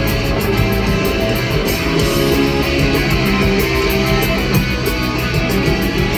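Loud live rock band music: electric guitars over drums keeping a fast, regular beat, played at a sound check.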